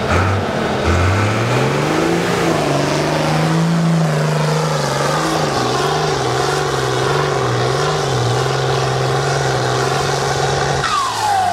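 Heavy four-wheel-drive trial truck's diesel engine revving up and held hard under load, its pitch wavering slightly as it works through rough terrain. Near the end the engine comes off load and a whistle falls in pitch.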